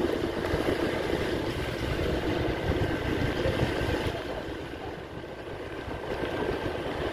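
A vehicle's engine running as it travels along, with a steady rumbling noise that drops briefly about five seconds in.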